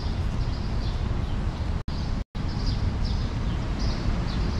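Birds chirping in short, high notes over a steady low rumble of street traffic. The sound cuts out completely for about half a second about two seconds in, a dropout from the choppy live stream.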